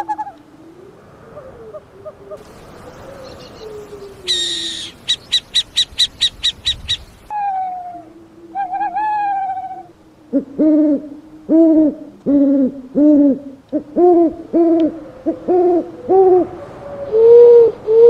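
A string of owl calls. A faint wavering whistle comes first, then a fast run of high, sharp notes about four a second. Two drawn-out bending calls follow, then from about halfway a steady run of short, loud hoots, roughly two a second.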